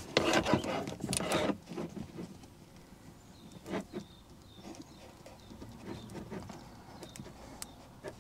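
Hands handling tweeter wires and their small connectors: a burst of rustling in the first second and a half, then faint scattered clicks and rustles.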